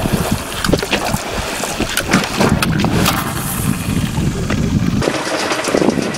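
Wind buffeting the microphone over water splashing and sloshing against a small fishing boat at sea, with irregular knocks. About five seconds in the sound cuts abruptly to a lighter one with quick, evenly spaced ticks.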